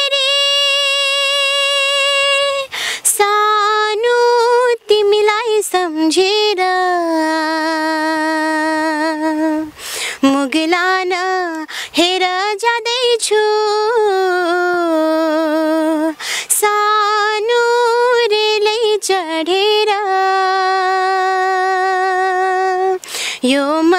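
A young woman singing a slow song unaccompanied, holding long notes with vibrato and taking short breaths between phrases.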